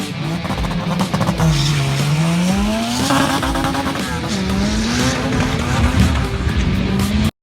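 Car engine accelerating hard through the gears, its pitch climbing and dropping at each shift, with tire noise; it cuts off abruptly near the end.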